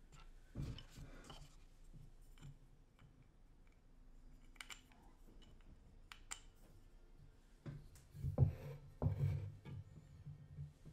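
Wooden inkle loom parts being handled and set against each other on a wooden table: scattered light clicks and taps, with a few louder knocks about eight to nine and a half seconds in.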